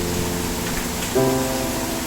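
Steady rain falling, under background music of held chords; a new chord comes in about a second in.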